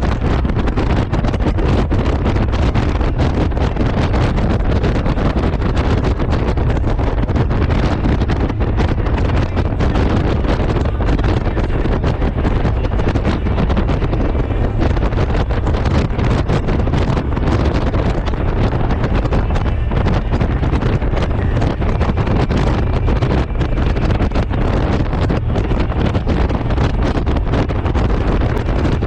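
Steady, loud wind rush and buffeting on the microphone of a motorcycle under way, with the ride's low road and engine rumble underneath.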